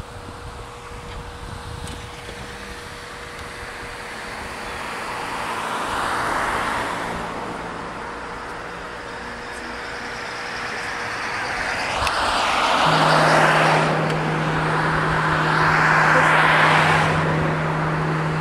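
Road traffic passing: about three vehicles go by one after another, each a rise and fall of tyre and engine noise. A steady low hum comes in about two-thirds of the way through.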